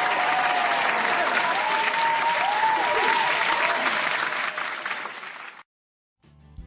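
Crowd applause with high whoops over it, cutting off abruptly about five and a half seconds in; music starts near the end.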